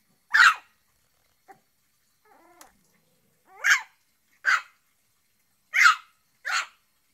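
Shih tzu puppy barking: five short, high-pitched yaps, one about half a second in and four more in quick succession in the second half, with a faint whine just before the second bark.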